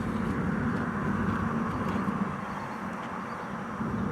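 A steady low engine rumble that eases slightly in the second half.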